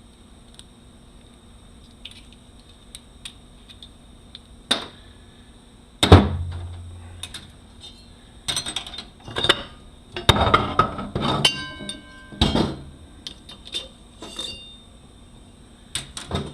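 Steel transmission parts of a 6L80E being handled on the bench: scattered metal clanks and clinks with short ringing, the loudest a knock about six seconds in, followed by a busy run of clinks over several seconds.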